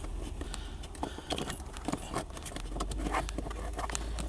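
Hands working a plastic OBD-II connector and its wiring into place under a dashboard, making scattered small irregular clicks and knocks over a low steady hum.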